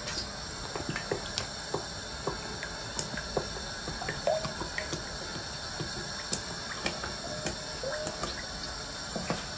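Cooking oil pouring in a steady stream from a plastic bottle into a preheated frying pan, with scattered faint ticks and crackles.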